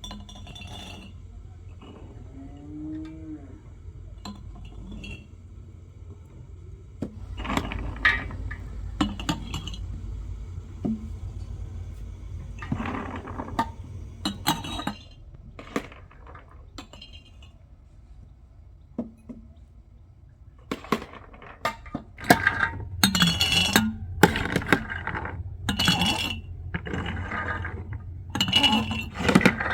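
A series of sharp clinks and knocks, coming thick and fast in the second half, over a steady low rumble, with one short animal call about three seconds in.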